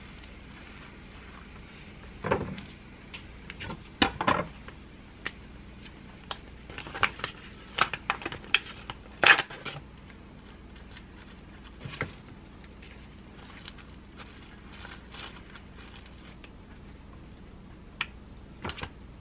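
A crusty bread roll being torn and hollowed out by hand on a wooden cutting board: scattered crackles of crust and crumb with soft knocks against the board, busiest in the first half, then only a few light handling sounds.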